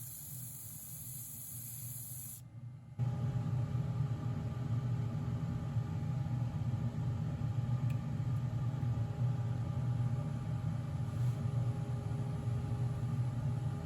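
A steady high hiss that stops about two and a half seconds in. After a short break a steady low electric-motor hum with faint whining tones starts up.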